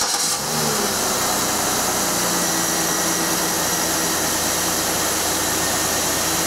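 2006 Pontiac G6 GTP's 3.9-litre V6 running at a steady fast idle of about 1,100 rpm while still cold, under a steady rushing hiss. It starts abruptly right at the start and is run to heat the coolant and open the new thermostat while air is bled from the cooling system.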